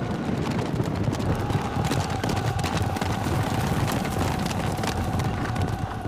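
Hooves of many horses galloping in a cavalry charge, a dense clatter and rumble, with a steady held tone over it.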